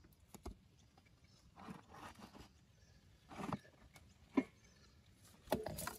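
A hand wrench being forced on a Land Rover Discovery 1's differential drain plug to crack it loose: scattered metal clicks and knocks, with a few short strained grunts of effort.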